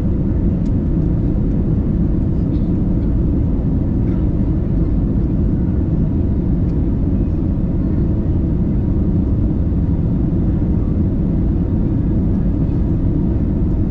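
Steady noise of an airliner's turbofan engines and rushing airflow, heard inside the passenger cabin during the descent to land.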